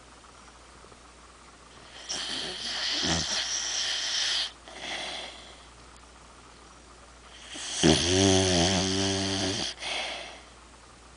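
An overweight dog snoring loudly in its sleep: two long snores about six seconds apart, the second with a clear low pitch, each followed by a short breath out.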